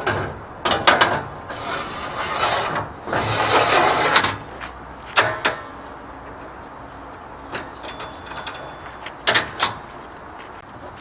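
Irregular mechanical clicks and clacks, with two longer rasping scrapes, one about a second in and a longer one from about two to four seconds in.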